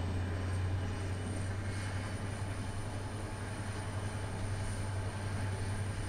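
Steady running noise inside a moving passenger train carriage: a low, even hum under a wash of rolling noise, with a faint high-pitched whine held above it.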